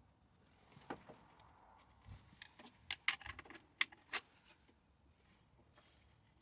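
Small metal chainsaw parts and hand tools being handled on a bench: a cluster of sharp clicks and light knocks from about one to four seconds in, the loudest two near the middle.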